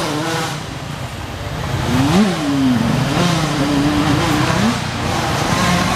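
Motocross bike engine revving hard: the pitch climbs sharply to a peak about two seconds in, drops away, then runs on at a fairly steady pitch.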